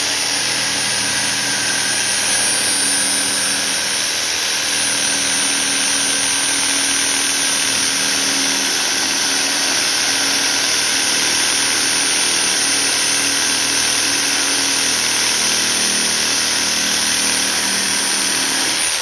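Dnipro-M JS-65LX electric jigsaw sawing through a 4 cm wooden board, running steadily with a high whine. It winds down and stops at the very end.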